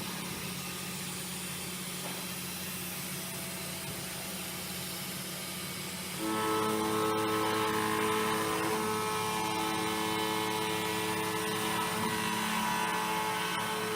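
CNC milling machine running on aluminum with a steady hum. About six seconds in, a louder steady whine with several fixed pitches joins in.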